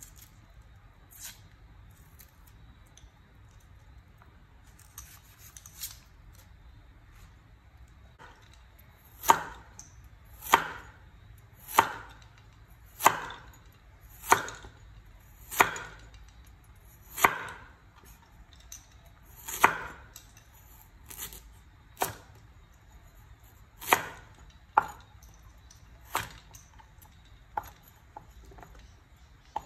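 Cleaver chopping through carrot on a wooden cutting board, single sharp chops about one every second or so. The chopping starts about a third of the way in, after a quiet start with a few faint clicks.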